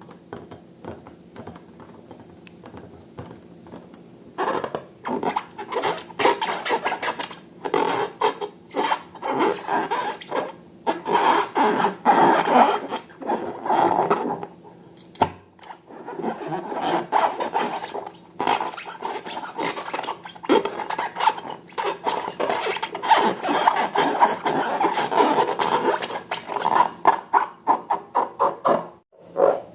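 Slime and balloon rubber worked by hand, giving a long run of irregular rubbing and squishing strokes that begins about four seconds in after a faint start.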